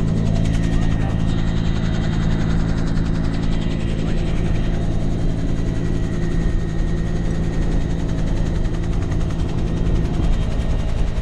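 Helicopter in flight heard from inside the cabin: a loud, steady drone of engine and rotors with a thin high whine over it.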